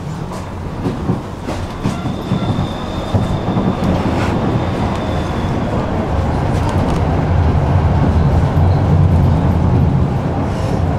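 Tram running on its rails and gathering speed, the low rumble growing steadily louder, with occasional clicks from the track. A thin high whine sounds for about four seconds starting about two seconds in.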